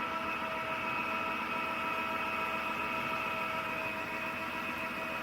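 Roborock F25 ACE wet-dry vacuum mop running steadily in auto mode: an even motor whine with a rushing hiss of suction.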